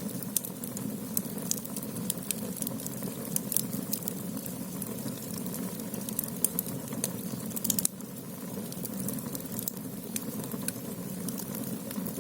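Firewood burning in the agungi firebox of a Korean ondol floor-heating system: a steady low rush of flame with frequent sharp crackles and pops.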